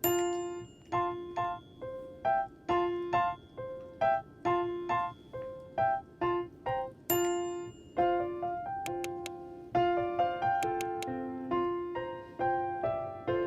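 Background music: a light, bouncy keyboard melody of short, plucked-sounding piano-like notes, a few per second.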